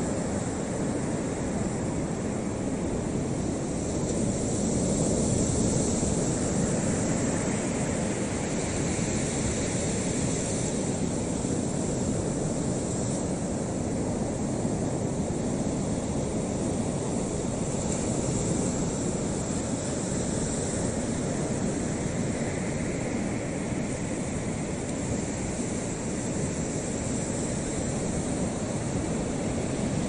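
Steady wind and water noise off choppy open water: an even, low hiss with no bird calls standing out.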